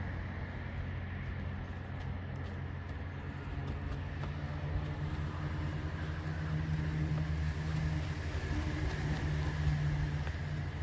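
Steady low mechanical hum with a pitched drone that grows louder from about four seconds in.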